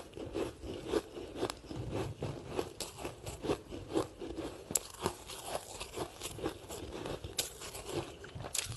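Short ice sticks being bitten and chewed: a continuous run of irregular, sharp crunches and cracks.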